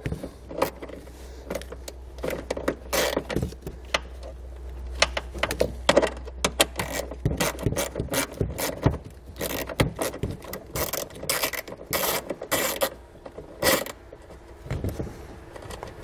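Hand ratchet with a 10 mm socket clicking in irregular quick runs as it loosens a factory ground bolt from the car body.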